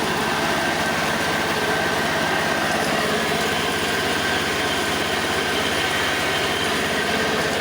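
Motor-driven stainless-steel skin separator (kulit ari dehulling machine) running steadily.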